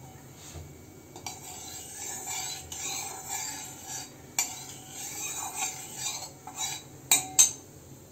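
Steel spatula stirring turmeric into oil in a metal kadai, scraping and rubbing irregularly against the bottom of the pan. Near the end, two sharp metal knocks as the spatula strikes the pan.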